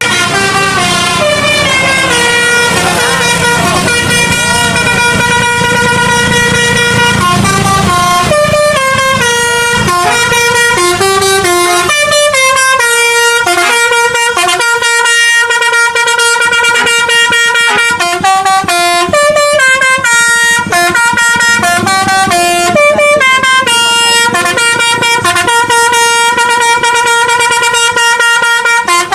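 Indonesian bus 'telolet' basuri horn playing a melody: loud held notes stepping from pitch to pitch, one after another. A low rumble sits under the horn for roughly the first eight seconds.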